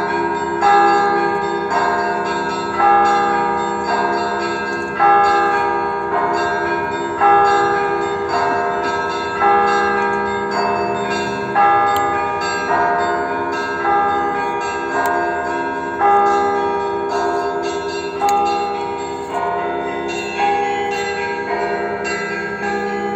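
Orthodox cathedral bells ringing: the largest bell is struck about every two seconds, each stroke ringing on with a deep hum, while smaller bells chime in a quick, repeating pattern between the strokes.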